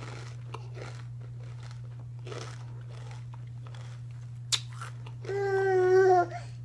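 Crunchy Takis rolled tortilla chips being chewed with the mouth closed, giving soft, irregular crunches. About five seconds in, the loudest sound comes: a person's voice holding one steady, slightly falling note for about a second.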